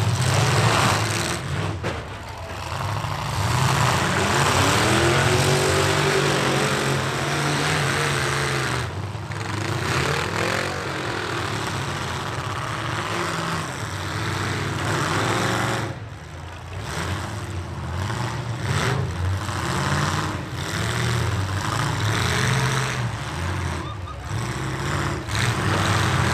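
Several pickup-truck engines revving hard and unevenly, their pitch rising and falling over a loud rough wash of noise as the trucks push and ram one another in a demolition derby.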